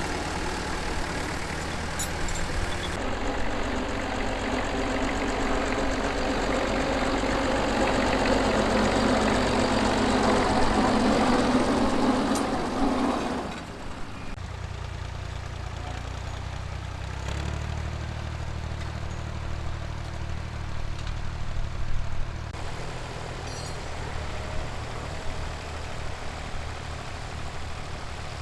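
Vintage tractor engines running steadily across several cut-together shots. The sound is louder and fuller in the first half, then drops to a quieter, lower engine note about halfway through.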